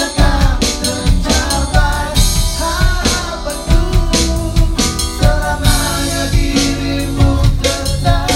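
A band playing live: a singer over a drum kit and other instruments.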